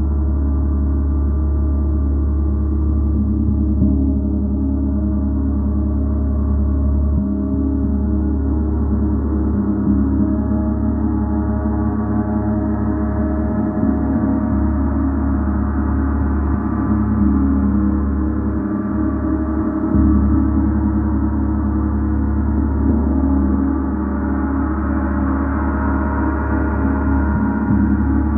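A gong resonating in a continuous, steady wash of overlapping deep tones and shimmering overtones, with no separate strikes standing out. The upper overtones swell around the middle and again near the end.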